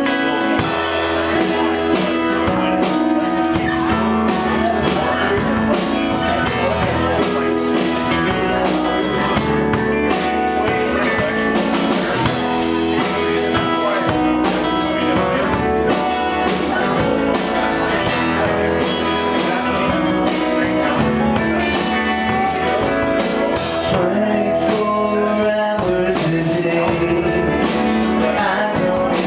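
Live band playing a song: strummed acoustic guitar, electric guitars and a drum kit keeping a steady beat.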